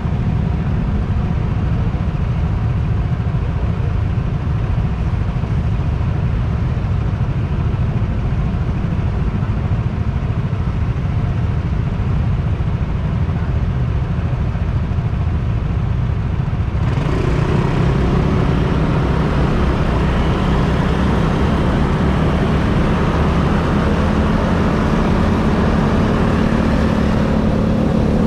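Engine and road noise from riding through city traffic: a steady low rumble. A little over halfway through, the sound suddenly turns brighter and hissier.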